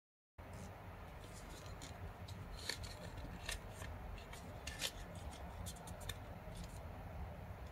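A square of origami paper being folded and creased by hand: soft rustling with a few sharp, short crinkles as the folds are pressed, over a steady low hum. It comes in after a brief moment of dead silence at the start.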